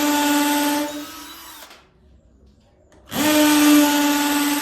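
Izom 20V cordless drill running at a steady speed, then released so the motor winds down to a stop about a second in. After a short quiet it starts again, quickly rising to the same steady pitch, about three seconds in.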